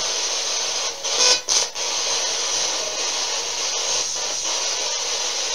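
Spirit box sweeping through radio stations: a steady static hiss, broken by a few brief choppy snatches of signal about a second in.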